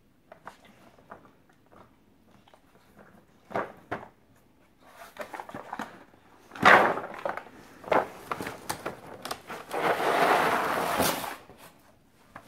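A dog rooting through a cardboard-tray food puzzle: scattered knocks and rattles of rubber toys and cardboard, a few louder scrapes about halfway through, and a longer stretch of rustling and scraping near the end.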